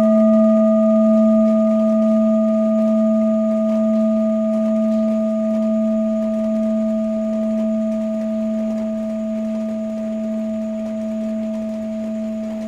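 Tibetan singing bowl ringing out after a strike: a low steady hum with fainter higher overtones, slowly fading with a gentle wavering pulse.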